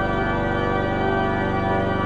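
Skinner Organ Company pipe organ, Opus 327 of 1921, holding a sustained chord of many notes over a deep pedal bass.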